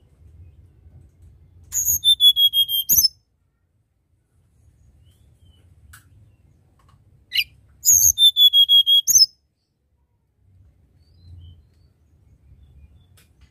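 Hill blue flycatcher singing two short, clear whistled phrases about five seconds apart. Each phrase is a held high whistle that ends in a quick upward flick.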